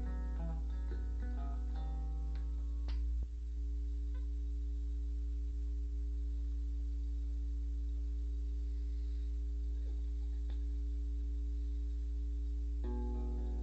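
Acoustic guitar picking the last notes of a song, then a click about three seconds in, after which only a steady low hum from the old reel-to-reel tape recording remains. Near the end the guitar starts picking the intro of the next song.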